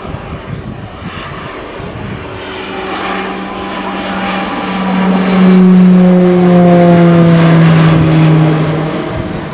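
Short SC-7 Skyvan's twin turboprop engines and propellers droning in a low flypast. The sound grows louder as the aircraft approaches, is loudest as it passes overhead, and its pitch falls as it goes by.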